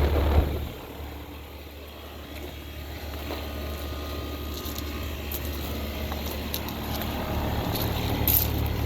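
Outdoor condensing unit of a new 2023 Heil 1.5-ton central air conditioner running, a steady hum from its compressor and condenser fan. The hum drops a little about a second in and slowly builds back, with a few faint ticks near the end.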